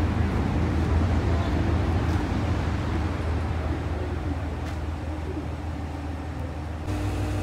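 Outdoor station-platform ambience: a steady low rumble with faint voices in the background. Near the end the sound changes abruptly and a steady hum comes in.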